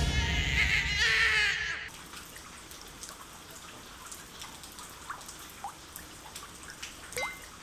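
A wavering electronic tone stops about two seconds in, leaving quiet water drips with a few faint short chirps.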